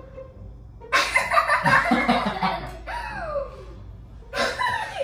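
Loud, breathy laughter in two bursts: a long one about a second in, and a shorter one near the end.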